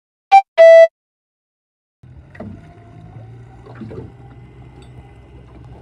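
A loud two-note electronic chime, the second note lower and longer. After a moment of silence, a boat's motor runs steadily with a low hum and a faint, slowly rising whine, with a few knocks over it.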